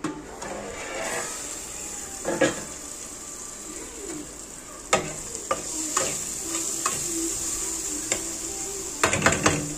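A spatula stirring and scraping a tomato-and-bean masala in an aluminium kadai, knocking against the pan now and then, over the steady sizzle of the masala frying in oil. The knocks come thick and fast near the end.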